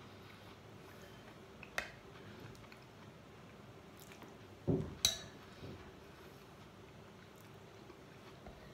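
Metal spoon on a ceramic bowl while someone eats a soupy mouthful: a light clink about two seconds in, then a soft thump and a sharper clink around five seconds in, with faint chewing between.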